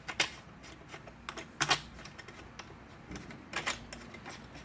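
Scattered light clicks and ticks of metal propeller bolts and spacer hardware being handled and started by hand into the hub, with a few sharper clicks about one and a half seconds in and again past the middle.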